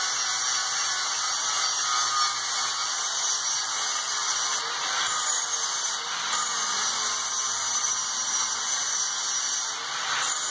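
Handheld electric angle grinder with its wheel grinding steel, cleaning up the metal and throwing sparks. The steady high-pitched grinding changes briefly about five seconds in and again near the end.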